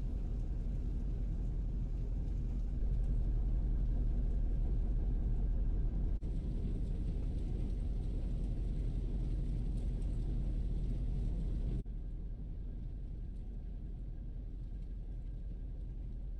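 Steady low vehicle rumble, like road and engine noise, with no crashes or impacts. It gets louder abruptly about three seconds in, dips for a moment about six seconds in, and drops to a lower level about twelve seconds in.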